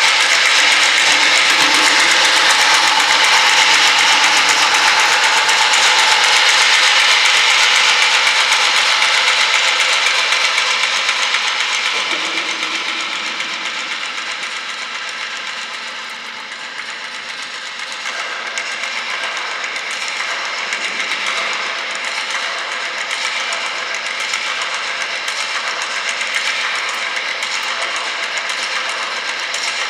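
Live experimental music played by a trio on tabletop objects: a dense, steady noise texture with several high tones held over it. It grows quieter about halfway through, then carries on at a lower level.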